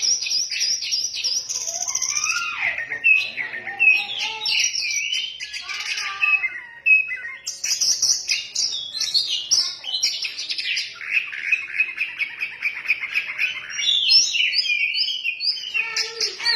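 Oriental magpie-robin (kacer) singing in full voice: a continuous, rapid, varied song of whistled notes, trills and chattering phrases with hardly a pause.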